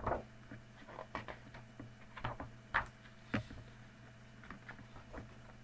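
Scattered soft taps and clicks of small objects being handled, about a dozen, over a faint steady low hum.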